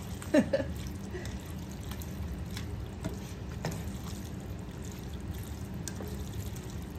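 A wooden spatula stirring a thick, wet mix of shell pasta, ground beef and tomato sauce in a large skillet: soft wet squishing with scattered clicks and scrapes against the pan. A steady low hum runs underneath, and a brief louder sound with a falling pitch comes just after the start.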